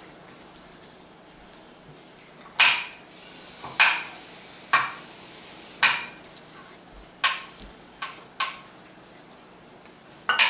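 Kitchen knife chopping green onions on a plastic cutting board: about eight separate sharp knocks, roughly one a second and unevenly spaced.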